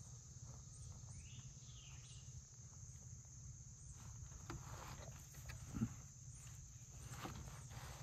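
Faint steady chirring of insects in the background, with a few soft clicks and taps from handling the unit's parts.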